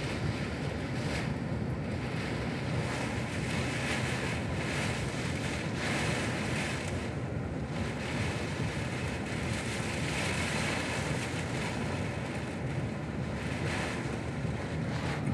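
Storm wind buffeting the microphone, with wind-driven rain hissing and small waves splashing against the shore, the hiss swelling with gusts every few seconds.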